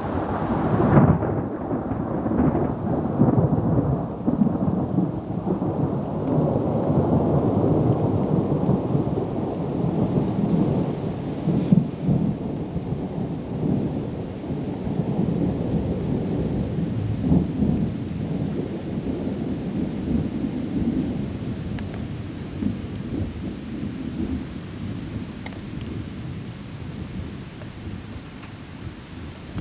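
Thunder rolling after a close lightning strike: a long, low rumble that swells and then slowly dies away, with a brief sharp crack about twelve seconds in, over steady rain.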